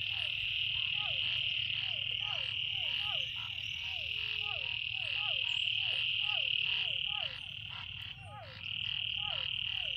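Frogs calling in a chorus: a steady high-pitched trill, with a short sliding call repeated about twice a second underneath. The trill breaks off for about a second near the end.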